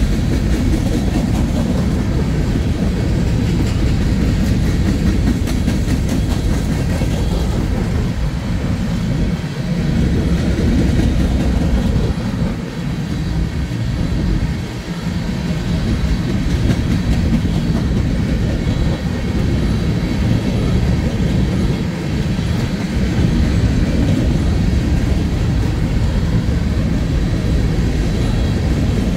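Norfolk Southern manifest freight train rolling past, a steady noise of wheels on the rails.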